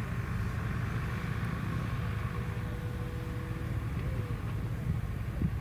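Steady low rumble of wind buffeting the microphone, with a faint steady hum in the middle.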